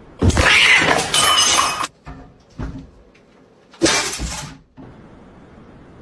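Something breaking with a loud crash and a glassy ringing that lasts over a second, then a shorter second crash about four seconds in.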